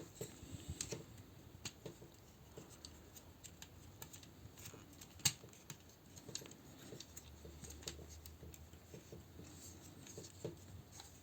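Plastic parts of a Transformers figure clicking and tapping faintly as they are handled, moved and pegged together, with one sharper click about five seconds in.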